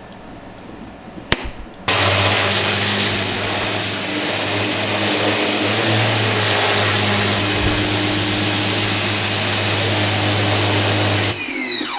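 Ryobi 1900 PSI electric pressure washer switched on about two seconds in after a click. It runs with a steady hum and a high whine, then shuts off near the end, its whine falling as the motor spins down.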